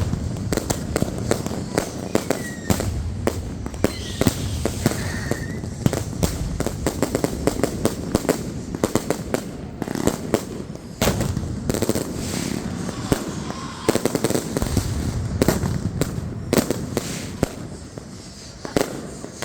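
Fireworks and firecrackers going off in quick, irregular succession: a dense run of sharp cracks and bangs, with a few short whistles a few seconds in.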